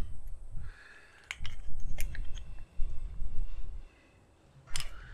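A few small metal clicks and clinks as needle-nose pliers and the small parts of a diesel fuel shutoff solenoid are handled over a stone tabletop, the sharpest click near the end, over a low rumble.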